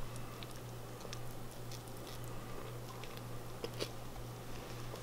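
A fork working through cooked chicken breast in broth in a stainless steel Instant Pot inner pot: faint, scattered clicks and light wet sounds, the sharpest click a little before the end.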